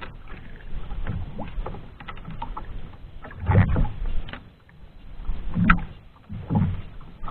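Water slapping and lapping against the hull of a small outrigger boat, with three louder low knocks in the second half, as a handline is pulled in hand over hand.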